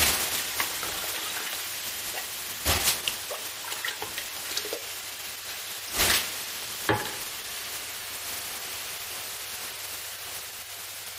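Water thrown onto the hot stones of a sauna stove, hissing into steam: the hiss starts suddenly and slowly dies away. A few short knocks sound about three and six seconds in.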